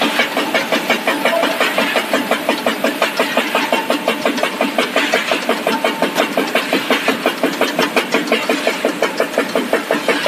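Snack food extrusion line machinery running: a loud, steady mechanical clatter with an even pulse of about four beats a second.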